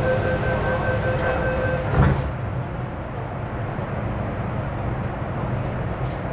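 Steady low rumble inside a Hong Kong MTR subway carriage. Two steady tones sound over it and stop about two seconds in, at the same moment as a single thump.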